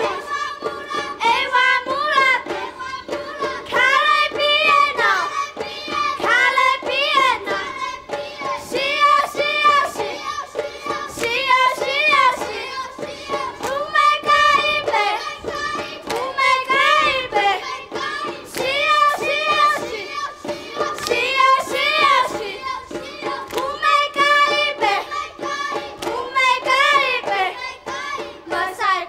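Children singing together over music, a continuous melodic chant with steady held tones underneath and frequent sharp knocks through it.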